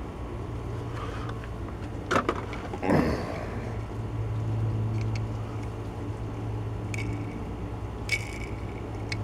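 A few light clicks and a short plastic rustle from handling a diecast toy car and its opened blister packaging, over a steady low hum.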